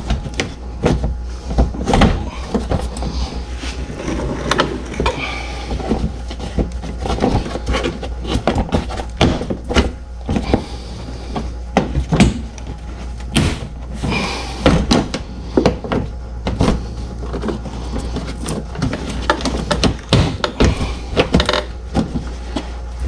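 Repeated clicks, knocks and clatter of car parts being refitted by hand after a fog light bulb change, with plastic panels, clips and bolts going back into place, over a steady low hum.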